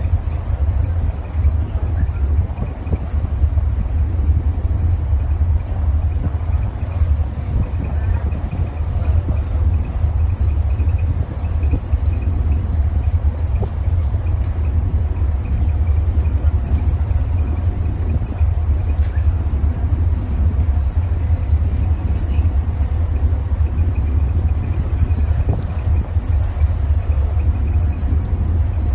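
Steady low rumble of the moving passenger ship Labobar with wind buffeting the microphone, over a continuous rushing hiss from the sea passing the hull.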